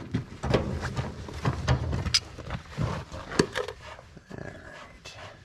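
Rusty axle nut on a farm wagon's wheel spindle being worked loose with slip-joint pliers and pulled off by hand: irregular metal clicks, knocks and scrapes.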